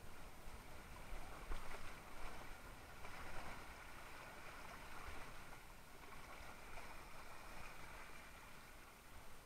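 Water rushing and splashing against a Mistral Superlight windsurf board's hull as it sails through light chop, with a few louder splashes in the first few seconds and a low rumble of wind on the microphone.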